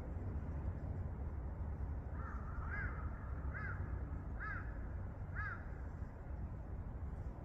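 A bird calling four or five times, about a second apart, each call a short rise and fall in pitch, over a steady low rumble.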